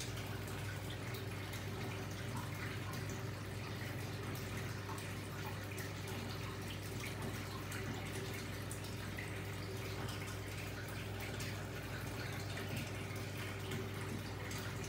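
Aquarium filter running: a steady low hum with water trickling and dripping into the tank.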